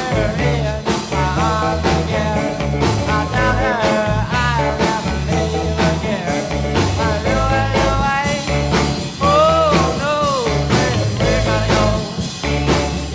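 Background music: a song with a bass line and a steady beat.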